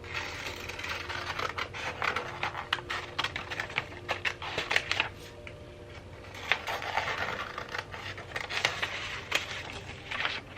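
Hands handling small objects and packaging: a fast run of light taps, clicks and rustling scrapes, in two busy stretches with a quieter gap around the middle.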